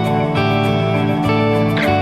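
Background music led by guitar, with held notes changing about every half second and a brief scrape near the end.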